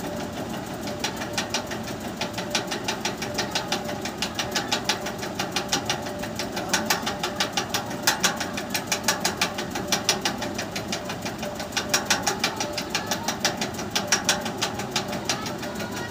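A small motor running with a steady hum and a fast, even clicking, about six clicks a second, which grows louder in the middle and eases off near the end.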